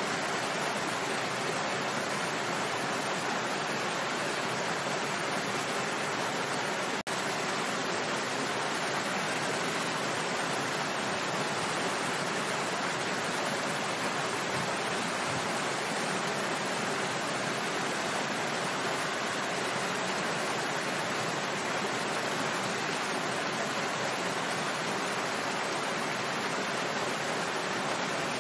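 Small waterfall: water falling and rushing steadily, with a split-second break in the sound about seven seconds in.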